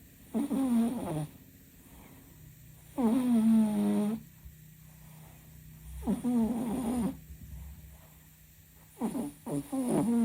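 A sleeping cat snoring loudly: four pitched snores, each about a second long, coming about every three seconds.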